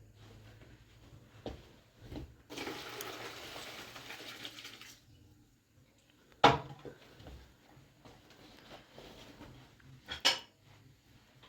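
Dishes and cooking utensils being handled: two sharp clanks, the louder one past the middle and another near the end, among faint clinking, with a few seconds of steady hiss early on.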